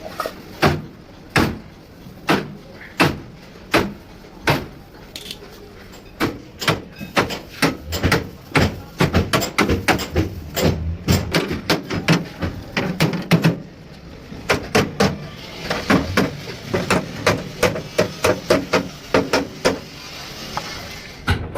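Hammer blows, struck singly a little under a second apart at first, then from about six seconds in faster and irregular, several a second.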